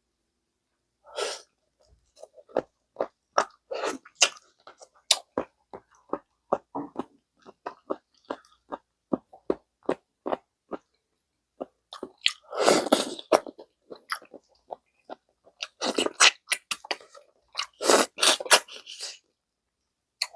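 Close-miked eating of gamjatang, pork-bone and potato stew: chewing with many quick wet mouth clicks and smacks, broken by a few longer, louder bursts, the loudest about a third of the way in and again near the end.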